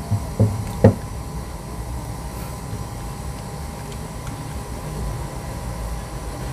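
Three short clicks of an Okuma Azores XP spinning reel's plastic and metal parts being handled and fitted by hand, all within the first second, followed by a steady low background hum.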